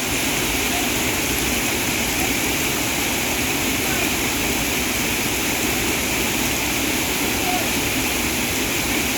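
Waterfall, extremely loud: a steady, unbroken roar of falling water.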